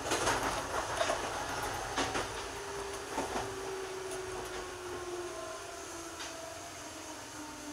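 JR 205 series electric train running on rails, heard from the cab: wheels clack over rail joints a few times, the clacks spreading out, while a faint whine slowly falls in pitch and the running noise fades as the train slows.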